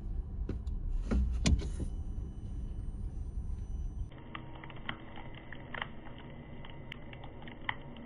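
Sharp clicks of leather high-heeled boots working a car's pedals over a low rumble. After about four seconds, scattered short crackles of dry leaves pressed under a car tyre.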